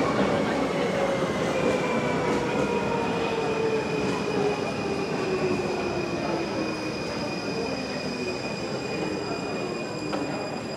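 U-Bahn train pulling into an underground station and braking to a stop. The motor whine falls steadily in pitch as the train slows, over a steady high whine and wheel noise.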